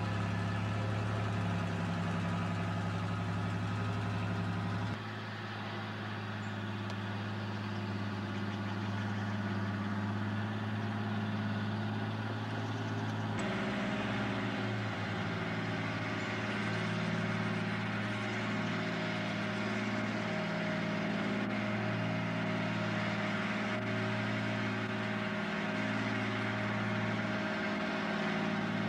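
Cummins diesel of a Lima Model 65-T shovel's four-axle truck carrier running as the machine is driven, a steady low engine note that wavers in and out in the second half. The sound changes abruptly twice, about five and thirteen seconds in.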